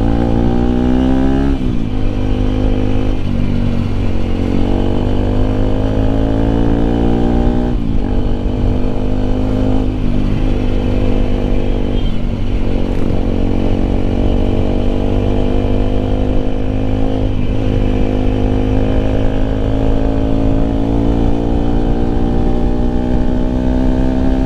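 Bajaj Pulsar RS 200's single-cylinder engine and exhaust heard while riding: the revs climb steadily, then drop sharply at each gear change, about six times, over a deep, bass-heavy exhaust rumble.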